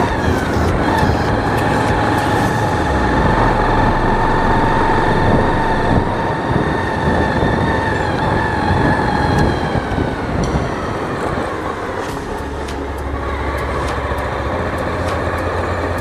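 Motorcycle running along a rough dirt track, with a steady whine over rumbling road and wind noise; the whine fades out about ten seconds in.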